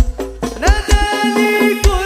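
Sholawat sung by a man over a hadroh koplo beat: hand drums and deep, heavily boosted bass hits. The beat drops out briefly near the start, then the voice and drums come back in.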